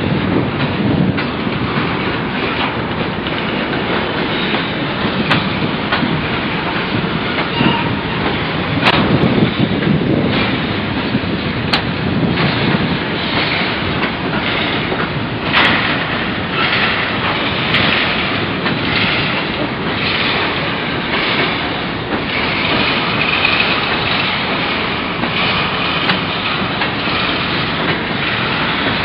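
Freight train's covered hopper cars rolling past at close range. A steady rumble of steel wheels on the rails is broken by scattered clacks as the wheels cross rail joints.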